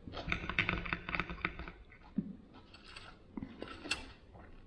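Close-miked chewing of crisp salad vegetables: a quick run of small crunches, then scattered ones. Near the end a metal fork clinks against the glass plate.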